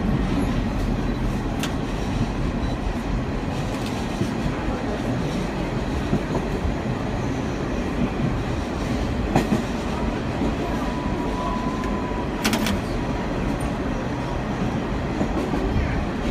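Vintage R38/R40 New York City subway train running at speed, heard from inside the cab: a steady rumble of wheels and traction motors with clickety-clack over the rail joints as it picks up speed from about 24 to 28 mph. A few sharp clacks break through, the loudest about three-quarters of the way in, just after a faint steady tone.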